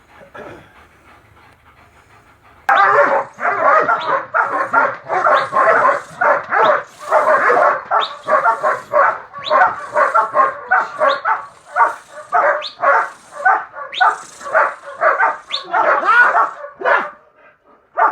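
A guard dog barking hard in a steady, rapid series, several barks a second. The barking starts abruptly about three seconds in and stops about a second before the end.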